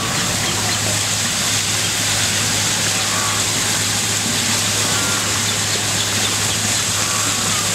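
Steady rushing noise with a low steady hum underneath.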